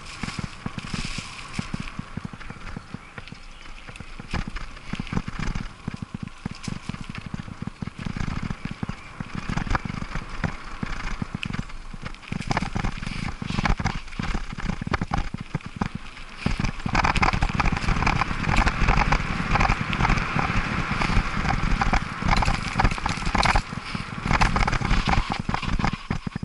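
Bicycle rattling and clattering over a rough dirt and leaf-covered trail, with tyre rumble and wind noise; it gets louder about two-thirds of the way through as the ride speeds up, then drops off at the very end.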